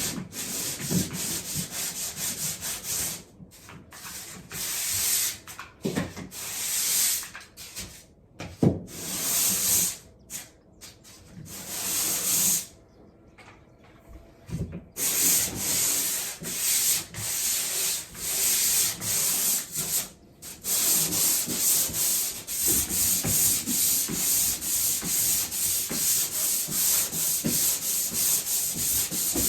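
Sandpaper rubbed back and forth over cured drywall joint compound, smoothing the final coat of mud over a patch. The strokes come in runs broken by short stops, with a longer pause a little before halfway, then a quicker, even rhythm.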